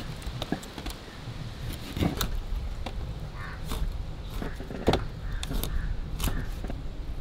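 Kitchen knife scoring pieces of raw fish on a stainless steel plate: irregular sharp clicks and taps as the blade cuts through the skin and knocks against the steel.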